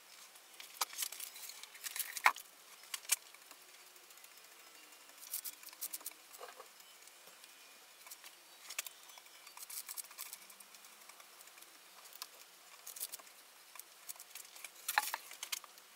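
Paintbrush laden with varnish stroking along a wooden handle: faint, irregular brushing scratches and light taps, in small clusters.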